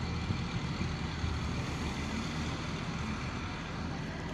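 Steady street traffic noise with a low rumble, without distinct events.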